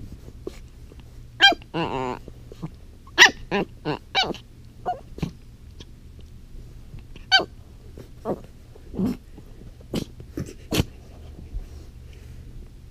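Pomeranian puppy yapping in play: a scatter of short, high barks and yips with pauses between them, and a brief growl about two seconds in.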